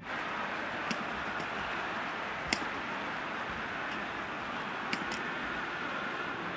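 Badminton rackets striking a shuttlecock during a doubles rally: a few sharp hits, the loudest about two and a half seconds in, over steady arena crowd noise.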